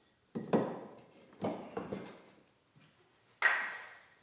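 Wooden template blocks being knocked loose and pulled out from inside a bark canoe hull: a series of separate wooden knocks and clatters, the loudest about half a second in and about three and a half seconds in.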